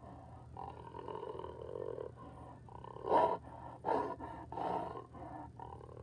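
Jaguar calling: a drawn-out rough growl, then three short loud grunting calls about a second apart starting about three seconds in.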